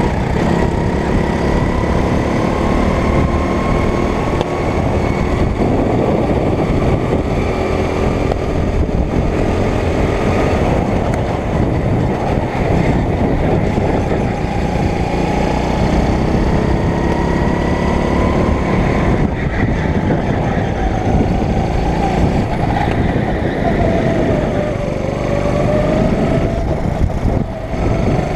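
9 hp go-kart engine running hard under the seat, its pitch climbing and dropping several times as the throttle is opened and eased.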